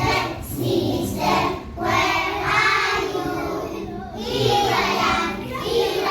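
Children singing together over music, in phrases with short breaks between them.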